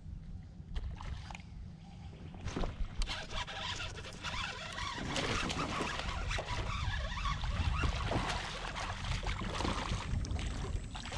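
A hooked fish being fought and reeled in, splashing at the surface. The splashing comes as a dense, noisy patter with many small clicks from about three seconds in, over a steady low rumble.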